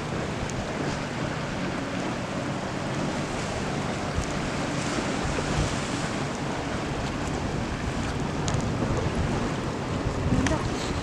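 Surf washing on the beach with wind buffeting the microphone, and a faint steady low motor drone from a boat underneath.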